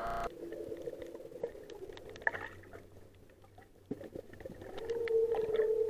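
Muffled underwater sound picked up by a submerged camera: scattered faint clicks and crackles, with a steady low hum that fades out midway and comes back louder near the end.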